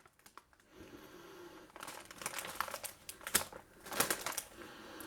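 Plastic Oreo packet crinkling and rustling as it is handled, quiet at first, then in scattered crackles with a few sharper ones about two, three and four seconds in.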